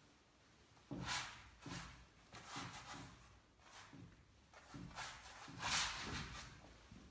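Oil-paint brush swishing and scraping across the painting surface in a run of short strokes, starting about a second in, the loudest one near the end.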